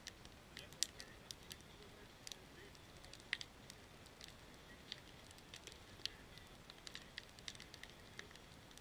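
Fire of split firewood logs crackling, with sharp irregular pops and snaps a few times a second.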